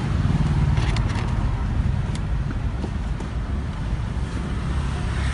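Steady low rumble inside a car's cabin, with a few faint clicks about one and two seconds in as a plastic armrest console is pressed into place between the front seats.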